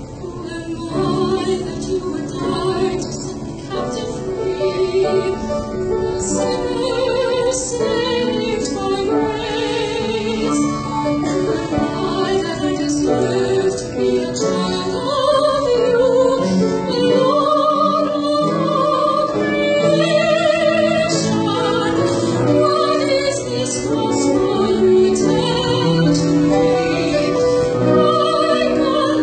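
A woman singing a composed vocal piece, accompanied by piano, violin and saxophone.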